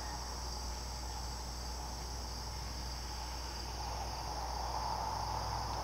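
Evening insect chorus of crickets trilling steadily and continuously, high-pitched, with a lower part of the chorus growing a little louder in the second half.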